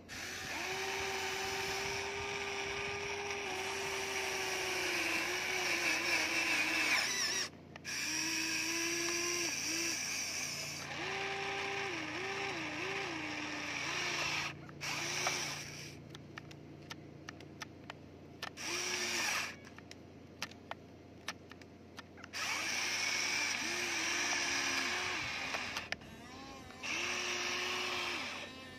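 Electric motors and gear drives of a Huina radio-controlled toy excavator whining in stretches of a few seconds as the boom, arm, bucket and swing are worked. The pitch dips and recovers as each motion takes up load, and the whine stops and starts again several times.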